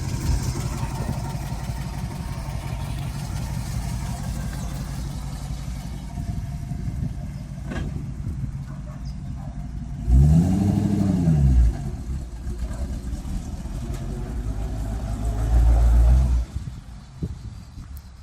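1956 Ford F-250 truck engine running as the truck is driven. About ten seconds in it revs up and back down over a second and a half, and a second loud low surge comes near the end and cuts off suddenly.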